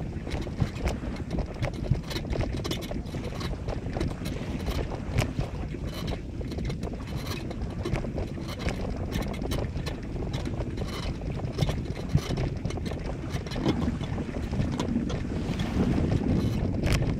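Low, rumbling wind buffeting the microphone, with scattered small clicks and knocks throughout.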